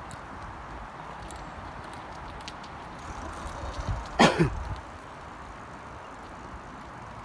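One short, loud vocal burst from a person, like a cough, about four seconds in, over steady outdoor background noise.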